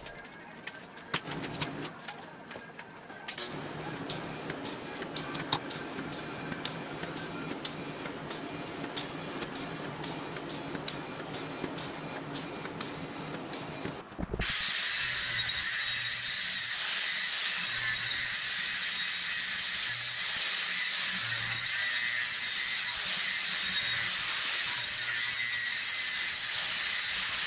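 Sharp taps and clicks over a low hum for the first half. Then, about halfway in, an angle grinder starts suddenly on steel square tubing clamped in a vise, and its grinding hiss runs steady and even.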